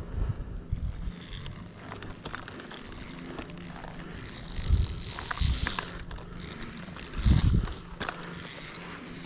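An arborist rappelling down a tree on his climbing rope: the rope hissing as it runs through the descent system, with clinking gear and dull thumps, the loudest about five and seven seconds in.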